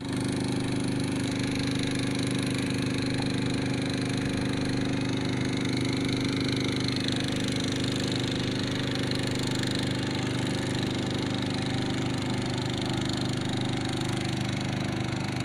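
Small boat engine running steadily at a constant speed, with an even drone and no change in revs.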